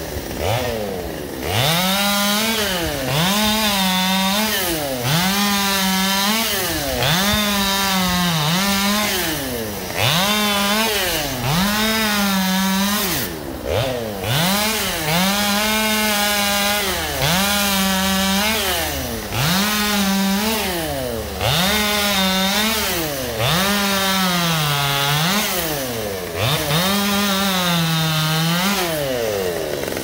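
Gas chainsaw revving up and dropping back over and over, about once every second or so, as it cuts up small branches of a felled tree. One longer cut comes midway through.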